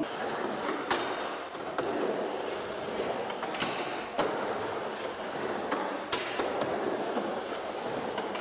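Skateboard wheels rolling over a concrete bowl, a steady rumbling hiss, broken about seven times by sharp clacks of the board and trucks hitting the coping and the bowl surface.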